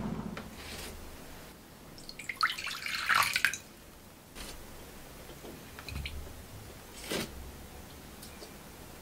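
Water poured from a small glass measuring cup into an empty glass mixing bowl, a splashing pour lasting about a second and a half, starting about two seconds in. It is followed by a few light drips and clinks.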